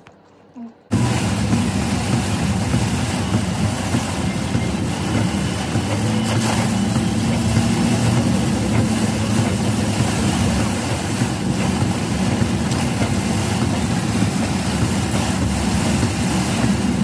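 Steady rush of heavy rain on a car's roof and windscreen, heard from inside the cabin, over the low hum of the engine and tyres on a wet road. It begins abruptly about a second in.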